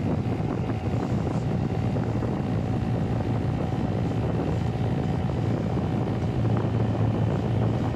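Homemade electric RC seaplane's motor and propeller running steadily with a thin whine, under a heavy rush of wind on the microphone.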